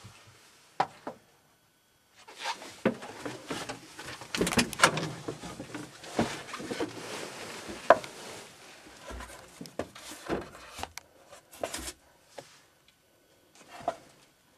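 Movement and handling noise inside a small aircraft cockpit: irregular rustling with scattered knocks and clicks, busiest from about two seconds in until near the end, then only a few isolated clicks.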